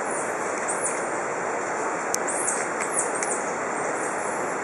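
Squirrel monkeys giving many short, high-pitched peeping chirps, each rising and falling in pitch, in a quick irregular series over a steady hiss.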